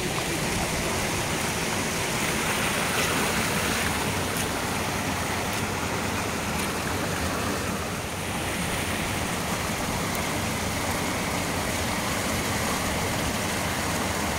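Floodwater rushing steadily over a low spillway and foaming over the rocks below.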